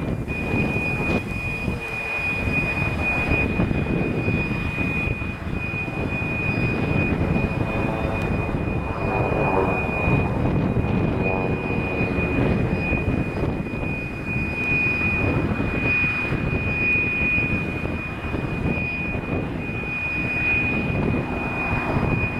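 Propeller engines of several Socata TB-30 Epsilon piston trainers flying display aerobatics overhead, the engine drone swelling and shifting in pitch as they pass. A thin, steady high tone runs throughout.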